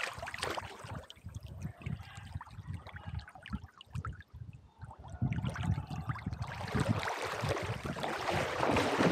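Water splashing and sloshing close by as a dog swims with its strokes, heard from a camera strapped to the dog's back; it grows louder toward the end.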